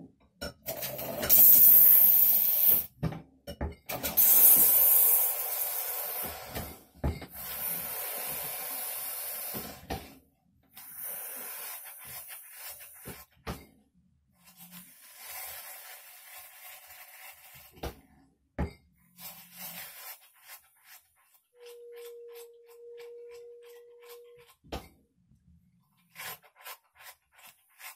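Beer drawn through a hand-pulled beer engine: each long pull of the handle sends a rushing hiss of beer from the spout into the glass, the first few strokes loudest and the later ones quieter. A steady whine sounds for about three seconds near the end, followed by a quick run of clicks.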